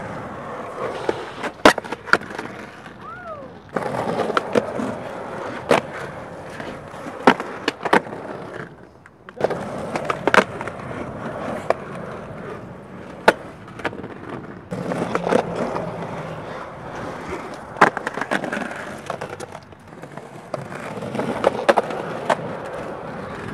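Skateboard wheels rolling over rough concrete, broken every few seconds by sharp pops and clacks as the board's tail snaps and the board lands during flatground tricks.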